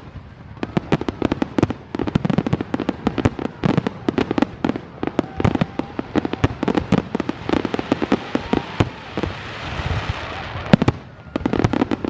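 Close, low fireworks display: a rapid barrage of firework bursts, bang after bang, with a crackling hiss swelling about three-quarters of the way through before a brief lull and more bangs.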